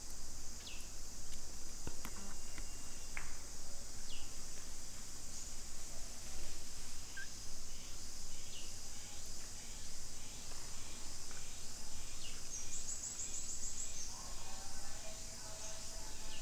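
Steady high-pitched insect chorus, with short falling chirps every few seconds and a brief rattling call near the end.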